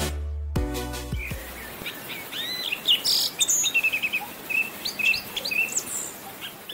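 Electronic music ends about a second in, then songbirds chirp and sing in short, varied calls over a faint hiss.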